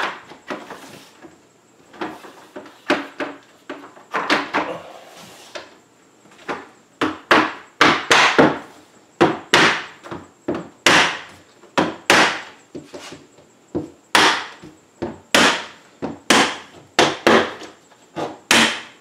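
Plastic mallet tapping a window pane into its vinyl frame: a series of sharp knocks, a few spaced ones at first, then about two a second from about six seconds in.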